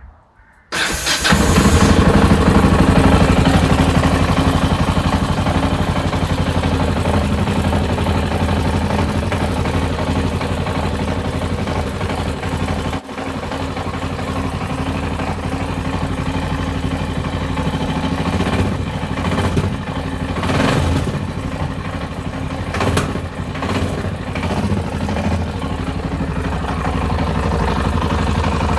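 Yamaha XT660Z Ténéré's single-cylinder engine starting about a second in, then running at idle with a few brief rises in revs later on. The owner presents this running as an engine knock.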